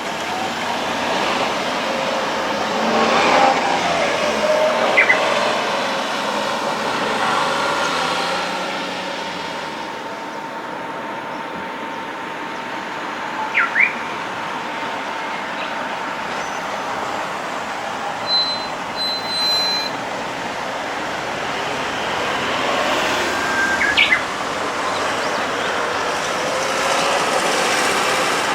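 Road traffic at a level crossing: vehicles passing, their tyre and engine noise swelling and fading twice, with a few short high chirps over it.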